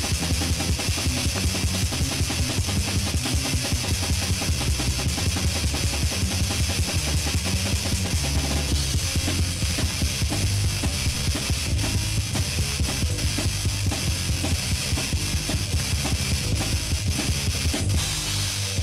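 Heavy metal music: distorted electric guitar, bass and fast drum kit playing an instrumental passage.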